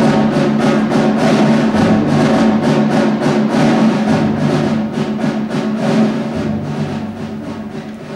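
Orchestral ballet music with percussion keeping a quick, even beat over sustained tones, easing down in level near the end.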